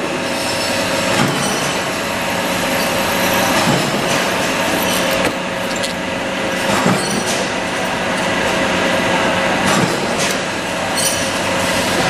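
Bench drill press running with a steady hum while its bit cuts into small aluminium parts, with a continuous hiss and squeal from the cut. Short metallic clinks come every second or two.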